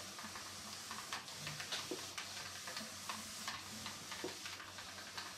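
Clothes iron pressed and slid over paper laid on a cardboard backcard: a soft, steady rustling hiss with faint scattered ticks.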